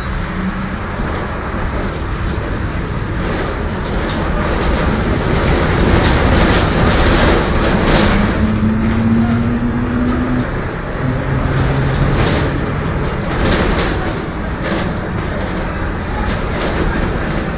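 Mercedes-Benz OF-1721 bus with a Marcopolo Torino body running at low engine revs, with rattles and clicks from the body. A growl from the differential rises in pitch for a couple of seconds about halfway through, and a lower drone follows.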